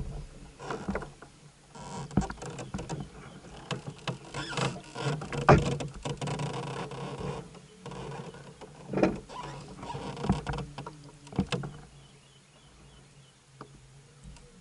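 A flathead catfish thrashing and splashing in the water beside a fishing kayak as it is landed, with irregular sharp knocks and thuds against the hull. The splashing and knocking die down about twelve seconds in.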